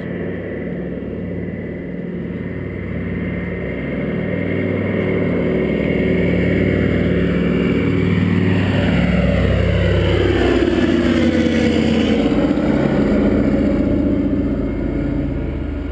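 Douglas DC-3's twin radial piston engines droning as the aircraft flies low overhead. The drone builds over several seconds, is loudest as it passes, and the engine note drops in pitch as it moves away, fading near the end.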